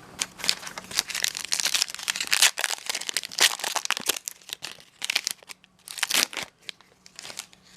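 Plastic wrapper of a 2020 Donruss trading-card pack crinkling as it is handled and torn open. The crackling is dense for about the first four seconds, then thins to a few scattered crackles and clicks.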